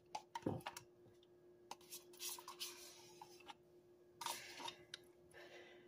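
Metal spoon scooping thick sour cream out of a plastic tub into a glass bowl: faint scrapes and soft clicks, with a couple of brief raspy scrapes in the middle.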